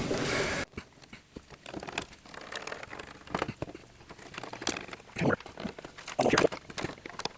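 Light, scattered clicks, taps and scrapes of a hand tool working screws out of the corners of a rusted metal gas fire pit. A brief hiss at the start cuts off suddenly under a second in.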